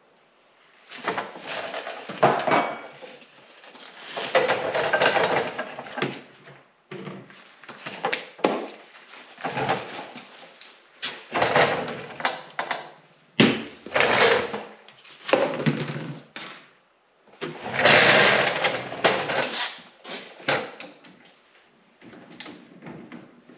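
Tool work on snowmobile ski mounting hardware: about ten noisy bursts of one to three seconds each, with sharp clicks between them.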